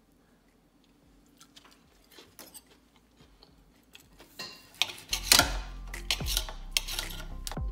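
Knife and fork clicking and scraping against a ceramic plate while cutting a steak, faint at first and busier after about four seconds. About five seconds in, background music with a steady beat comes in over it.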